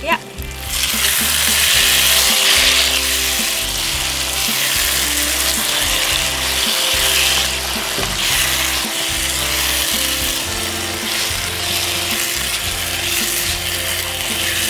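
Potato cubes in onion-tomato masala sizzling in a nonstick frying pan as a spatula stirs and scrapes them, the sizzle swelling with each pass. A short clink at the very start as the glass lid comes off. Quiet background music runs underneath.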